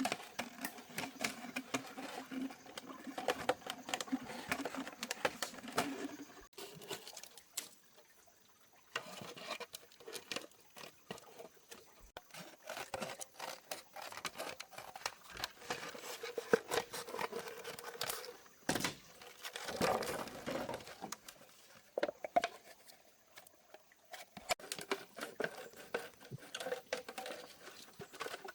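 Plastic bottles being handled and worked by hand: a busy run of irregular clicks, taps, crinkles and scrapes, with a short pause about seven seconds in.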